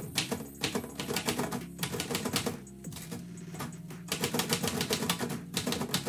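Manual typewriter being typed on: quick runs of key strikes clacking against the platen, with a pause of about a second and a half in the middle.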